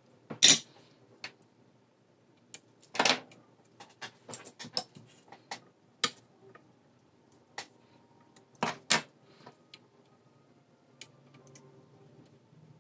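Scattered clicks and knocks from handling an instrument cluster's circuit board and small hand tools, with the loudest knocks just after the start, about three seconds in, and two close together about nine seconds in.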